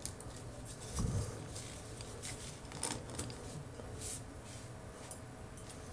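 Faint clicks and taps of a small plastic transforming robot figure being handled, its weapons pegged into the arms and the figure set on a tabletop, with a soft thump about a second in.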